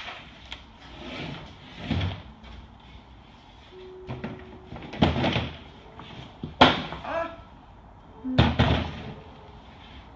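Large stretched canvases being handled and set against an easel: a series of wooden knocks and thumps with some scraping, the sharpest bang about two-thirds of the way through.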